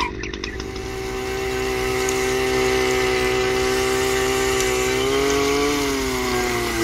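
A small motor runs with a steady whine. About five seconds in its pitch sags, and it drops lower just before the end as it slows, then picks back up.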